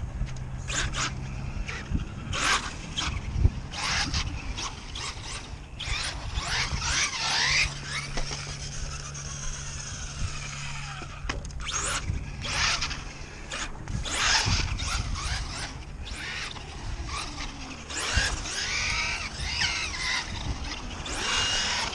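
2WD Traxxas Stampede RC truck's brushless motor whining, rising and falling in pitch with the throttle, over many short tyre squeals and scrapes on concrete as it is driven hard.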